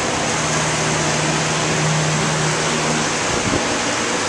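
Belt-driven exhaust fan running, air rushing steadily out through its louvers, with a low hum that fades out about three seconds in.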